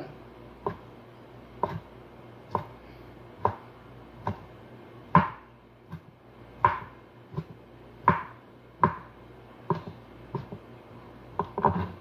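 Kitchen knife chopping boiled sheep offal on a plastic cutting board: a dozen or so separate knocks, roughly one a second.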